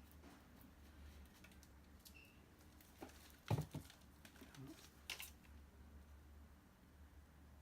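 Mostly quiet, over a faint low hum, with a few small clicks and knocks of handling. The loudest is a pair about three and a half seconds in, with another a couple of seconds later.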